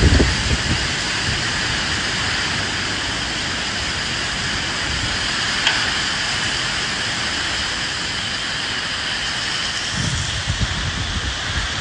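Steady rain hissing, with wind; low rumbles come at the start and again near the end.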